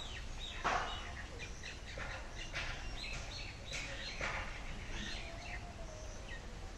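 Small birds chirping over and over in short high notes. A few short scraping knocks come through as clay clods are dug out of the oven hole.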